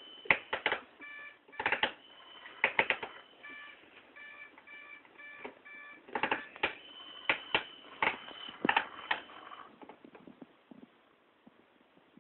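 Plastic clicks and clacks in quick clusters from a baby's toy steering wheel and levers on a Safety 1st car walker, mixed with short electronic beeps from the toy and a thin steady high tone. The toy sounds stop about ten seconds in.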